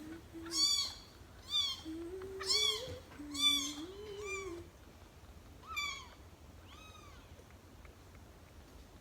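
Young kittens, about two to three weeks old, mewing: about seven short, high, rising-and-falling cries, one roughly every second, stopping after about seven seconds.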